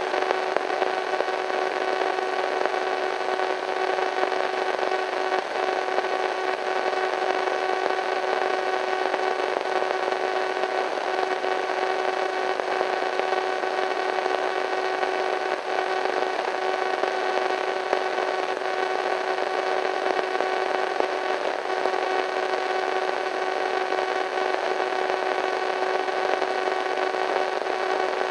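Radio static: a steady hiss of white noise with several faint steady tones running through it, giving a slightly eerie hum.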